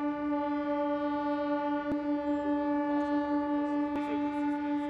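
A horn sounding one long, steady note, rich in overtones, held without a break.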